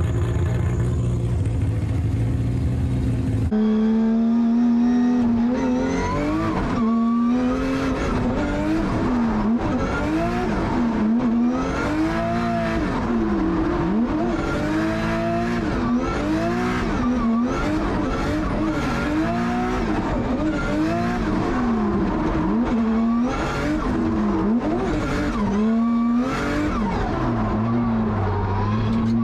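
2JZ-engined Nissan S15 drift car, first pulling away at low, steady revs. From about three and a half seconds in it is heard inside the cabin at high revs on a drift run. The engine note rises and dips over and over as the throttle is worked through the corners.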